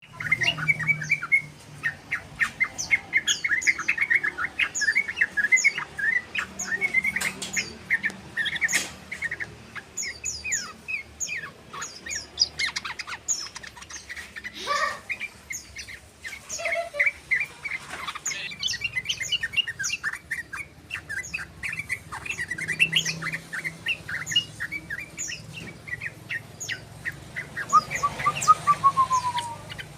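Yellow-vented bulbul (trucukan) chattering in fast runs of short chirps, practising its rapid 'ropel' song, with short pauses between runs. Near the end comes a brief string of lower notes falling in pitch.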